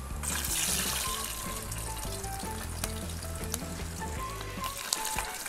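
Small stream fish deep-frying in hot oil: a loud sizzle that swells just after the start and eases off near the end.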